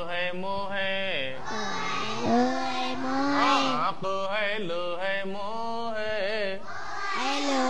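Sing-song chanting of an Urdu reading lesson: voices intone the syllables of a word to a melody that rises and falls, with long held notes.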